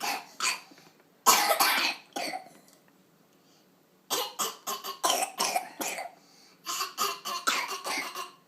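Young children coughing: a few short coughs, a pause, then a quick run of coughs starting about four seconds in. The coughing is put on in play rather than from illness.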